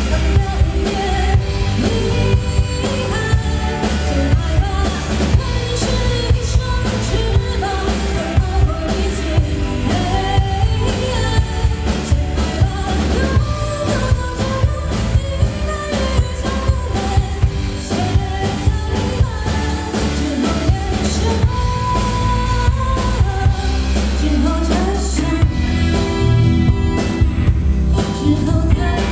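A pop song with a sung vocal over a band with drums and bass, a steady beat.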